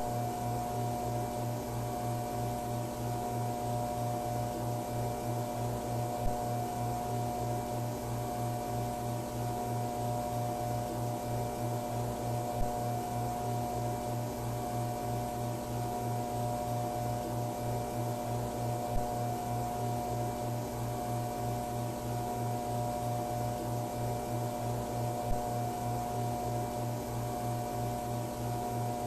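Steady buzzing hum of fluorescent ceiling lights over a soft hiss: the monotonous ambient drone of the Backrooms. A small click comes about every six seconds.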